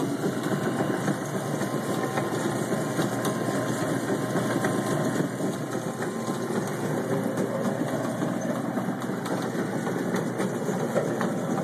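Modified Whizbang tub-style chicken plucker running empty and steadily: its motor turns the spinning plate of rubber plucking fingers through a belt and pulley under the tub.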